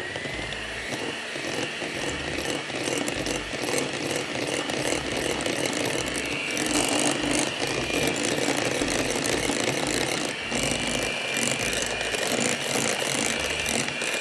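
Electric hand mixer running steadily, its whine rising as it comes up to speed at the start, with its metal beaters rattling against a glass bowl as they beat thick strained yogurt with icing sugar.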